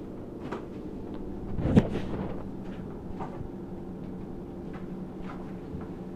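A coonhound's claws ticking irregularly on a hard floor as it paces and circles restlessly during a liver-shunt spell, over a steady low hum, with one heavier thump about two seconds in.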